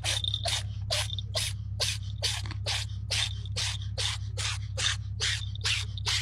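Small jingle bell on a cat's collar jingling in quick, even shakes, about two and a half a second, as the cat swats with its paw. A steady low hum runs underneath.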